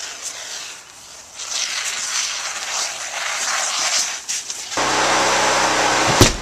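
Demolition noise: crackling and scraping for a few seconds, then a motor starts running about five seconds in, with a heavy thump near the end.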